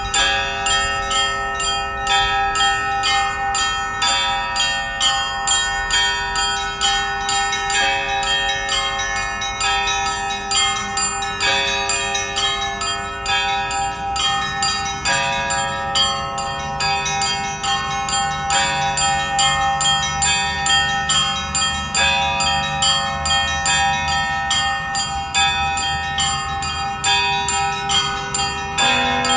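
Russian Orthodox festive church bell ringing: several bells of different pitches struck in a quick, repeating rhythm, each left ringing on. A deeper bell sounds through the second half.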